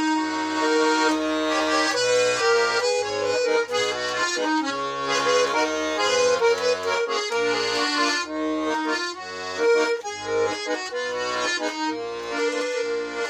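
Accordion playing an instrumental passage of a Russian folk-style song: a melody over short bass notes.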